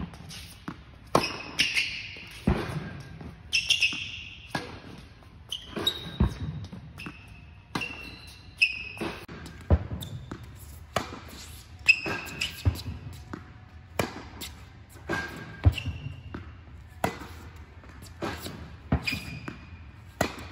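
Tennis balls struck by a racket and bouncing on an indoor hard court, a sharp pock every second or so that echoes in the hall, with short sneaker squeaks between the shots.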